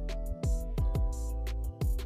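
Background music with a steady drum beat about twice a second over held tones.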